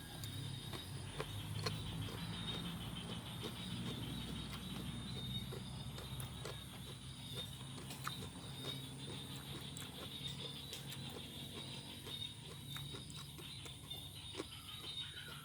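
Close-up chewing and crunching of a raw vegetable salad of long beans, cabbage and cucumber: many small crisp clicks at an irregular pace.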